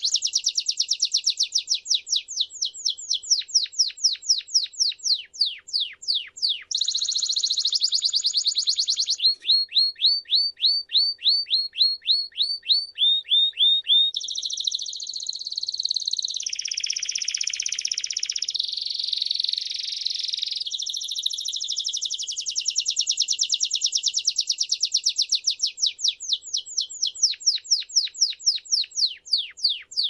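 Timbrado canary singing one long unbroken song of rapid trills: runs of quick repeated notes, many sliding downward, changing speed every few seconds. A dense rolling passage in the middle gives way to slower, spaced-out downward notes near the end.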